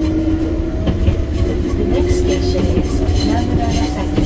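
Enoshima Electric Railway 300-type electric train running, heard from on board: a heavy steady rumble with a continuous hum, and a couple of sharp knocks from the wheels over the track.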